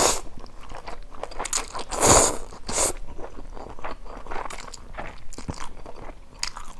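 A person slurping up soupy instant noodles and chewing. There is a long slurp about two seconds in, shorter ones at the start and soon after, and small wet chewing clicks in between.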